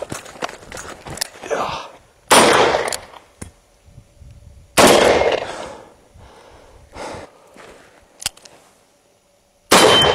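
Three shots from a Llama Comanche III .357 Magnum revolver, about two seconds in, about two and a half seconds later, and near the end, each trailing off over about a second. Footsteps on gravel come before the first shot.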